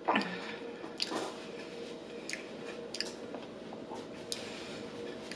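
Close-miked chewing of food, with wet mouth smacks and scattered sharp clicks of the tongue and lips.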